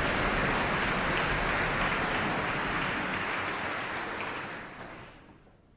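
Concert hall audience applauding, a dense steady clapping that fades and dies away near the end.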